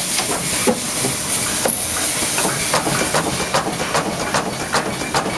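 Radiator circumferential seam welding machine running a dry cycle without a weld: the turntable fixture turns with a steady hiss and rapid, irregular clicks and rattles.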